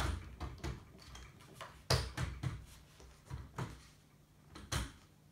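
Irregular knocks and clicks of hard parts being handled and set against a 3D printer's frame while a bracket is fitted by the Z rod, about eight separate taps, the loudest about two seconds in.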